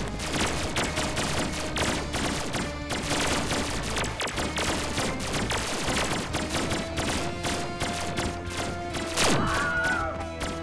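A sustained shootout: rapid, continuous gunfire sound effects, with steady background music underneath.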